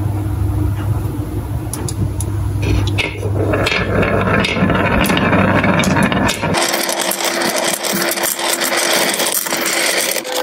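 Glass marbles rolling down the S-shaped grooves of a wooden marble-run track: a few single clicks at first, then a dense rolling rumble and clatter from about three seconds in as many marbles knock together in the curves. A steady low hum runs under the first few seconds.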